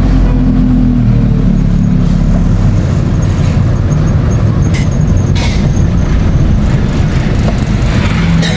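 A road vehicle's engine running steadily under road noise while driving, with a couple of brief clicks about halfway through.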